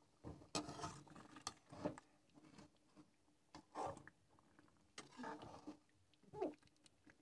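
A spoon scraping and sliding against a metal cooking pan while fish curry is stirred, in a series of irregular short scrapes with a brief squeak near the end.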